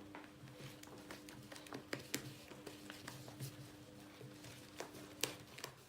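Irregular light taps and clicks of a utensil against a bowl as a glue, shaving foam and baking soda slime mixture is stirred.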